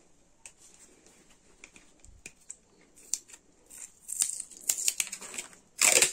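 Roll of clear packing tape being worked by hand: faint clicks as a fingernail picks for the loose end, then from about four seconds in a run of loud ripping as tape is pulled off the roll, loudest near the end.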